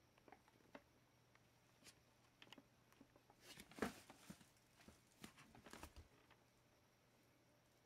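Faint clicks and light knocks of a laptop and its small parts being handled during disassembly, coming thicker in the middle with the loudest knock about four seconds in.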